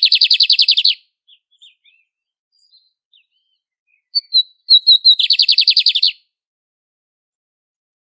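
Male lined seedeater (bigodinho) singing. Its song is a few separate clear notes followed by a fast rattling trill about a second long. One song ends about a second in, and the next comes about four seconds in, with a few faint short notes between.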